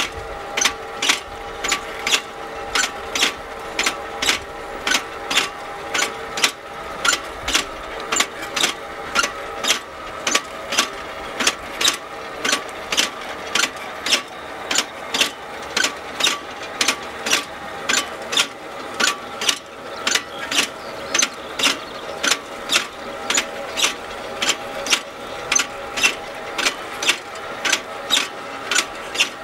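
FarmDroid FD20 field robot working its way along the rows, with its implements clicking about twice a second over a steady whine from its machinery.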